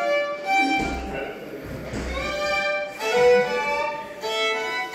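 Two fiddles playing a lively tune together, bowed notes in quick succession.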